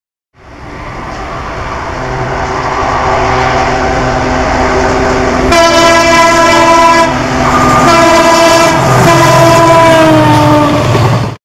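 An approaching WDP 4D diesel-electric locomotive hauling a passenger train: engine rumble and running noise grow steadily louder, then about halfway in the locomotive sounds its multi-tone horn in long blasts, the pitch sagging slightly near the end as it draws past.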